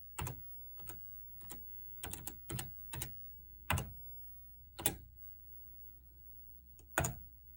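Keys on an Apple II keyboard pressed one at a time: about a dozen separate keystrokes at an uneven pace, with a pause of about two seconds before the last one, over a faint low hum.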